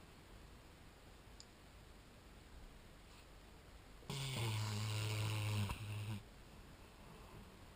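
Black Labrador retriever snoring in its sleep: one loud, low-pitched snore lasting about two seconds, starting about halfway through.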